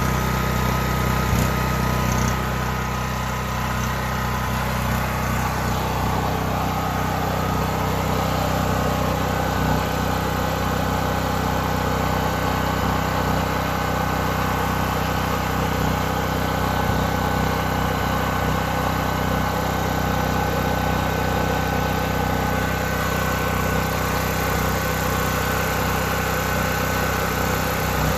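Westinghouse WGen5300 portable generator's single-cylinder four-stroke engine running at a steady speed.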